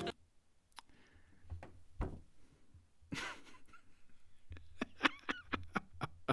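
A man's stifled laughter: a run of short breathy bursts in the second half, after a couple of faint knocks and a thump early on.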